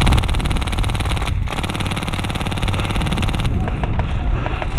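Polar Star MK46 airsoft machine gun firing on full auto: two long bursts of rapid, evenly spaced shots, split by a short pause at about a second and a half in. Scattered clicks follow once the firing stops.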